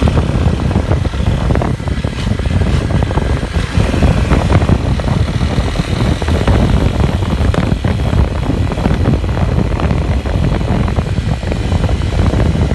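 Motorcycle engine and exhaust running steadily while riding, with heavy wind noise on the microphone.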